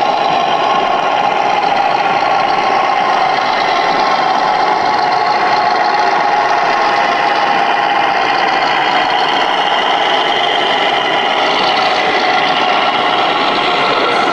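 Small electric motor drive of a 3D-printed RC log loading crane running with a steady whine, its pitch shifting a little near the end as the crane works.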